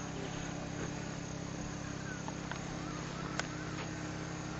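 Outdoor ambience: a steady low hum, with faint short chirps every second or so and a single click a little past halfway.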